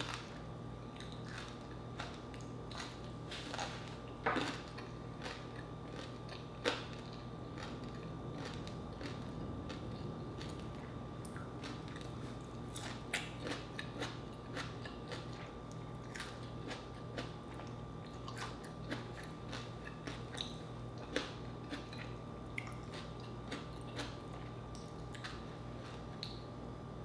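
Close-miked chewing of fried pork, chicken and rice, with scattered short, sharp crunches and clicks over a steady low background hum.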